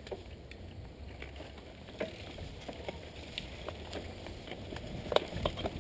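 Mountain bike rolling over a bumpy dirt trail, heard from a camera mounted on the handlebar: a low rumble of tyres with scattered rattling clicks and knocks from the bike over the bumps, the sharpest knock about five seconds in.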